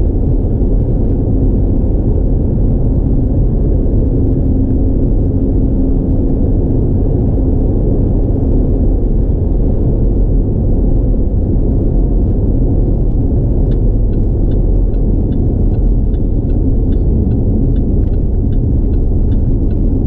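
Steady road and engine rumble inside a car's cabin while it cruises along a highway, with faint, irregular light ticks in the second half.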